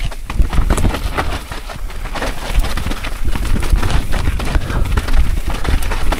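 Mountain bike descending a rough trail: rapid, irregular knocks and rattles from the frame, chain and suspension over the rough ground, over a constant low rumble.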